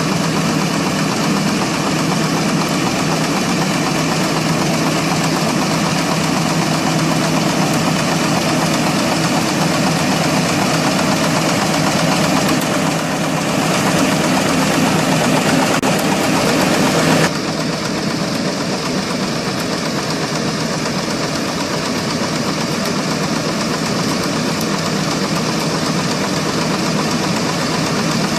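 Tractor engine running steadily, powering a mounted orchard pruning machine. It gets a little louder for a few seconds, then drops suddenly in level about seventeen seconds in.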